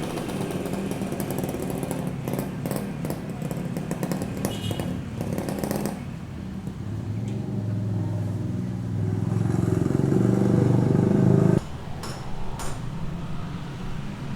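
An engine or motor running steadily, growing louder and then cutting off sharply about three-quarters of the way through, with clattering and knocks around it.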